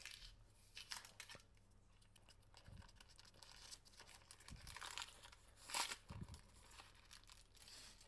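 Faint crinkling and rustling of baking paper as a filled sheet of puff pastry is rolled up by hand on it. The rustling comes in short spells every second or so, with a few soft low bumps.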